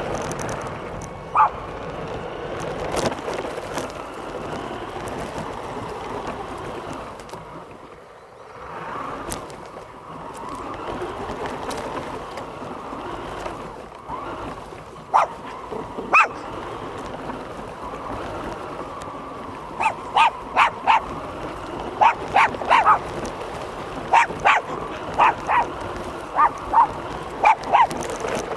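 A small dog barking with short, sharp yips: a single bark near the start, two more about halfway through, then a rapid run of about three barks a second through the last third. It is the excited barking of a dog chasing a toy RC car. Under it runs a steady background noise.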